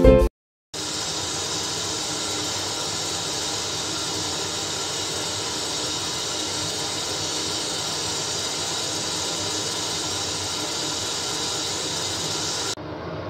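Pot of chicken feet at a rolling boil on the stove: a steady bubbling hiss. It starts about a second in and turns a little quieter and duller near the end.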